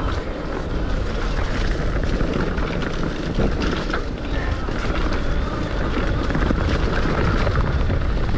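Steady rolling noise of an electric mountain bike ridden over a wet, leaf-covered dirt trail, with wind rumbling on the camera microphone.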